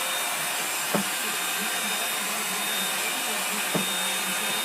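Vacuum cleaner running steadily, with two short knocks, one about a second in and another almost three seconds later.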